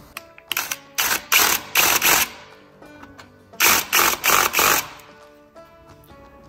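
Electric drill run in short, gentle trigger bursts while drilling into aluminium: about five quick bursts in the first two seconds, then a cluster of four more near the middle. Faint background music underneath.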